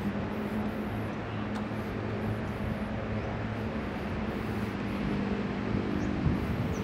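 Steady low drone of distant city traffic.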